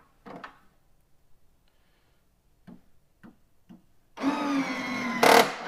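Small electric motor in a lifesize Hover Pram toy driving its canopy, a steady whine that starts about four seconds in, with a sharp clack about a second later. The canopy is binding on something as it moves. Before that come a few light plastic taps as the canopy is handled.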